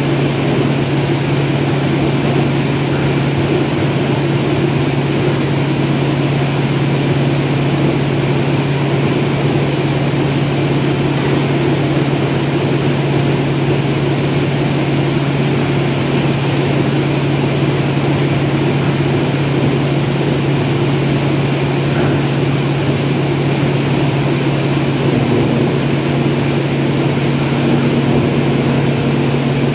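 Steady mechanical drone from a running engine or machine: a constant low hum over an even rushing noise, unchanged throughout.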